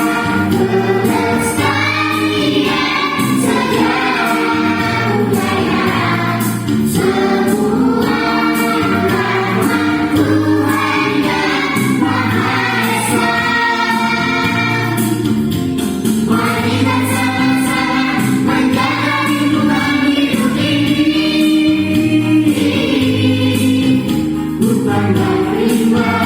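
Music: a group of voices singing a song together over a steady percussion beat.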